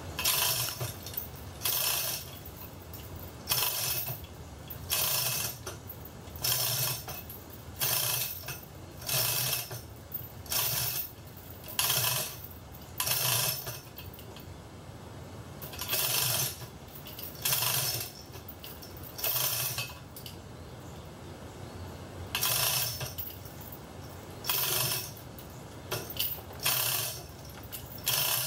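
Chain hoist's hand chain rattling through its sheave as it is pulled hand over hand, lifting a Prius engine out of the engine bay. The rattle comes in short metallic bursts about every second and a half, with a couple of brief pauses.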